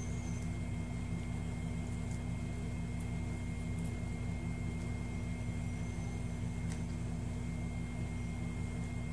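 A steady low hum with a thin constant high tone above it, and a few faint small clicks.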